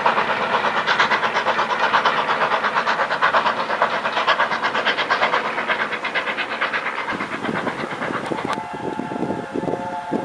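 Steam locomotive working hard, its exhaust beats coming in a rapid, even rhythm and slowly fading. About eight and a half seconds in the sound changes abruptly and a steady steam-whistle tone begins.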